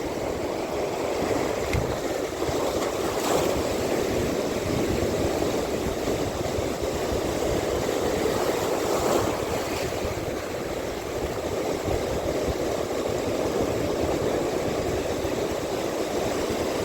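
Steady wash of sea water with wind buffeting the microphone.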